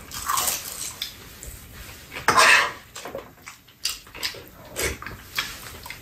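Two people eating at a table: metal spoons and chopsticks clinking against bowls, a frying pan and a metal tray, with scattered sharp clicks and mouth noises of eating, the loudest a little over two seconds in.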